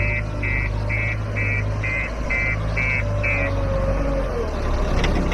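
Diesel engine of a JCB backhoe loader running steadily, with a reversing alarm beeping about twice a second until about three and a half seconds in.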